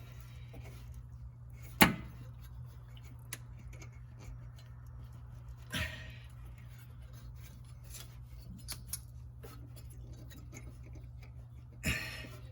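Sharp metallic clinks and knocks from exhaust parts and hand tools being handled under a car: three louder clanks, the loudest about two seconds in, and a few lighter ticks, over a steady low hum.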